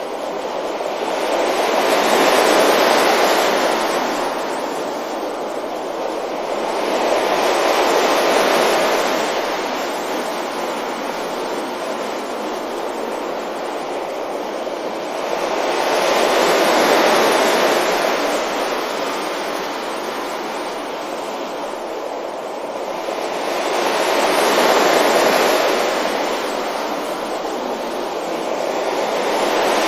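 Ocean waves washing onto a beach: a continuous rush of surf that swells and fades in slow surges, cresting about every five to nine seconds.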